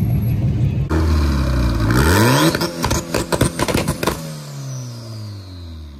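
A passing hot-rod pickup's engine for about a second, then a Honda Civic coupe's four-cylinder engine revving up with rising pitch, followed by a rapid run of sharp cracks before the revs fall away slowly over the last two seconds.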